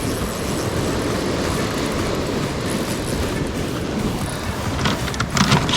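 Steady rushing noise of wind and surf at the shoreline, with a quick cluster of sharp clicks and knocks about five seconds in.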